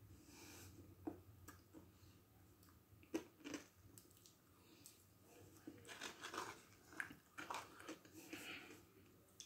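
Faint mouth sounds of eating spoonfuls of a thick milkshake from a plastic spoon: scattered small clicks and lip smacks, coming more often in the second half.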